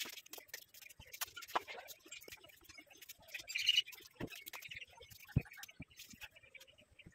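Dry laundry being pulled down from a washing line and gathered up: scattered soft rustles and light knocks, with a short high chirp just past halfway.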